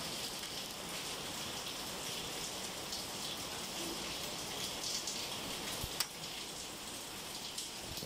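Steady rain falling under and around a covered patio: an even hiss of drops, with a single sharp tick about six seconds in.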